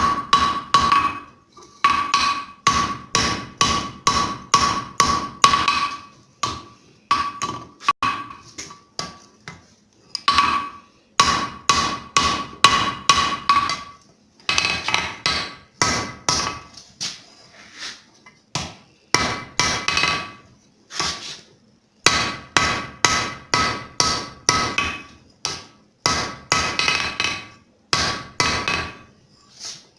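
Blacksmith's hand hammer striking hot steel on an anvil while forging a hammer eye punch: runs of quick ringing blows, about three a second, broken by short pauses.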